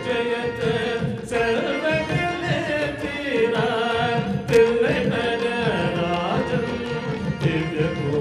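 Live Indian music: a man sings a gliding melody into a microphone over a steady held harmonium note, with tabla strokes keeping the rhythm underneath.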